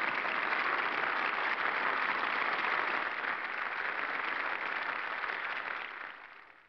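Audience applauding, a dense even clapping that fades out near the end.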